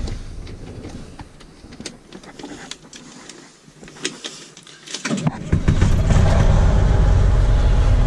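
A truck's diesel engine cranks and starts about five seconds in, then runs steadily. Before that there are a few sharp clicks from the controls under the dash.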